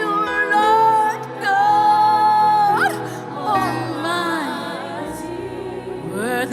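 Live worship music: a solo voice singing long held notes with vibrato over sustained keyboard-like chords, loudest in the first half and softer after about three seconds.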